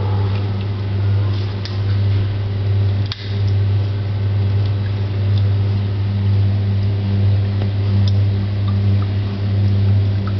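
Underwater treadmill's motor and pump humming steadily at a low pitch, with a brief dip about three seconds in. Faint light splashes from the dog walking through the water.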